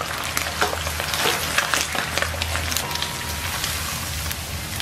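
Pork slices deep-frying in a wok of hot oil: a steady sizzle thick with crackling pops.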